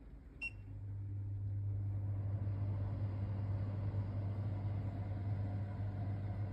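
A control button beeps about half a second in, then a Falmec kitchen range hood's extractor fan starts up: a steady motor hum with rushing air that builds for about two seconds, holds steady, and cuts off abruptly at the end.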